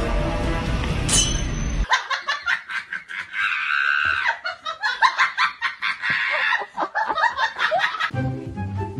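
Background music with a short rising whistle, which breaks off into about six seconds of rapid, high-pitched laughter; the music comes back near the end.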